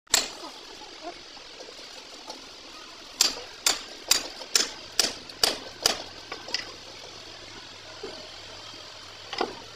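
Steel parts of an excavator track roller being struck: a run of seven sharp, ringing metal taps, about two a second, followed by a few lighter knocks.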